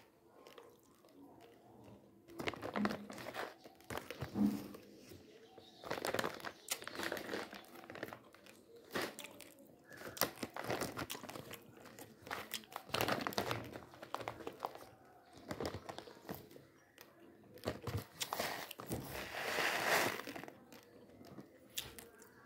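Plastic rice packets crinkling as they are handled, in several separate bursts of rustling with quieter gaps between them.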